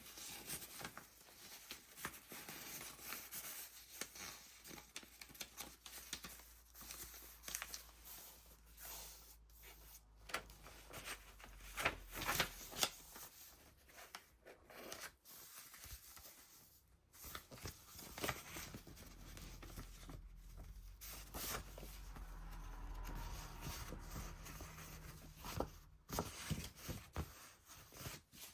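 Paper pages of a handmade junk journal being turned and handled: irregular rustling and crinkling of layered paper, with short taps and flicks.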